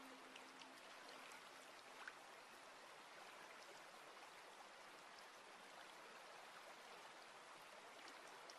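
Faint, steady trickle of water running through a shallow stone-lined garden stream with small cascades. A held background-music note fades out within the first couple of seconds.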